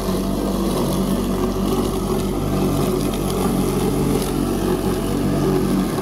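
A motor-driven machine running steadily with a low hum under a broad noise, switched off abruptly at the very end.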